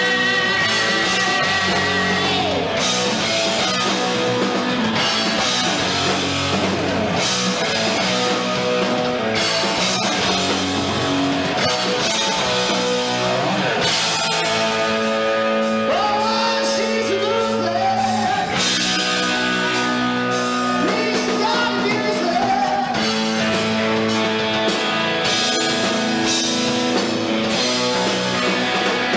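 Live rock band playing: electric guitars through amplifiers and a drum kit, with a man singing into a microphone.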